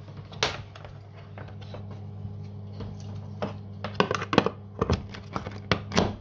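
Plastic clicks and knocks of a plug being fumbled into a splash-proof wall socket with a hinged cover, to power an electric water heater: a single click about half a second in, then a run of sharper clicks in the last half, over a steady low hum.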